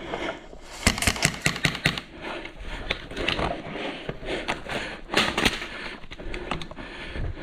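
Airsoft gun firing: a quick string of sharp clicking shots about a second in, then scattered single shots and clicks.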